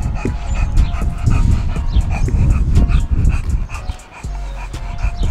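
Dogs whining and barking, over a heavy low rumble that drops away about four seconds in.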